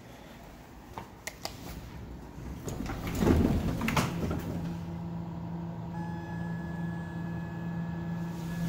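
Elevator call-button clicks about a second in, then the hydraulic elevator's sliding doors opening with a rumble and clatter around three seconds in. After that a steady electrical hum sets in.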